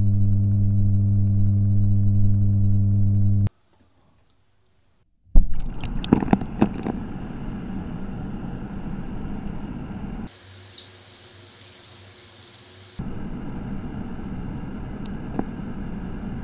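Bathroom extractor fan humming steadily, picked up through a hydrophone used as a contact mic pressed against its hub; the hum cuts off after about three and a half seconds. After a short silence, water runs through a shower head, heard through the same contact mic taped to it: a few knocks as it starts, then a steady rushing that drops quieter for a few seconds in the middle.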